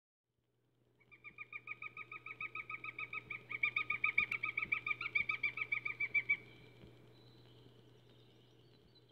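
A bird calling in a rapid run of clear, evenly spaced notes, about six a second, growing louder and then stopping abruptly after about five seconds, over a low steady hum.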